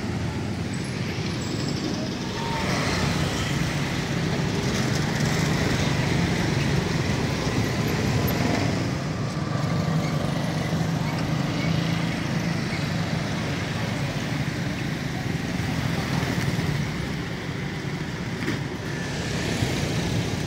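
Steady road traffic noise from passing cars and other motor vehicles, with no clear sound of a train or crossing bell standing out.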